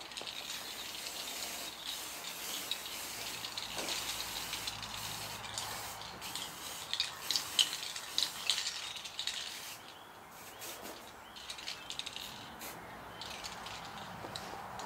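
Aerosol spray cans hissing as primer is sprayed onto a car's front wing, in long bursts that drop off briefly about ten seconds in and then carry on more quietly.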